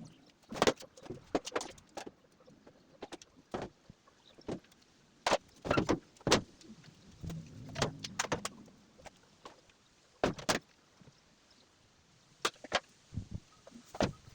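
Irregular knocks, clicks and clatters of tools and panels being handled while a Brastemp washing machine is taken apart, with a brief low rumble about halfway through.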